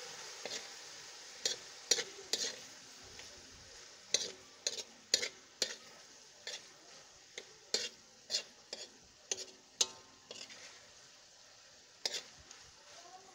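Fried rice sizzling in a large wok while a spatula stirs it, with sharp, irregular clacks of the spatula scraping and striking the pan, about two a second, over a steady frying hiss.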